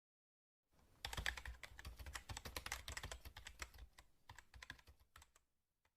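Computer keyboard typing sound effect: a fast, uneven run of key clicks for about four seconds, thinning to a few last taps before it stops.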